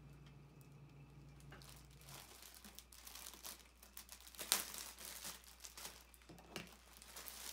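Clear plastic wrapping crinkling and tearing as it is pulled open by hand, in irregular crackles that pick up about two seconds in; the loudest is a sharp tear about four and a half seconds in.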